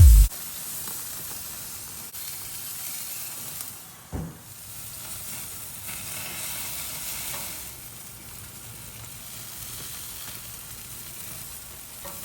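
Steak sizzling on a grill: a steady hiss of frying, with one low thump about four seconds in.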